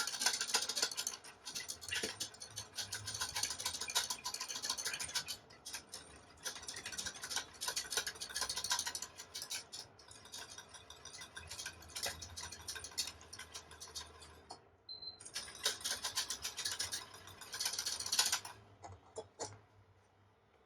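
Wire whisk clicking and scraping rapidly against a pot as a custard is whisked over the heat, kept moving so it does not burn. It comes in several stretches with brief pauses and stops near the end.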